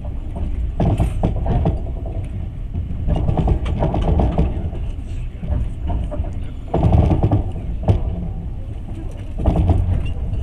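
A passenger train running along the track, heard from inside the carriage: a steady low rumble of wheels on rails, swelling into louder clatter every few seconds, with a few sharp knocks.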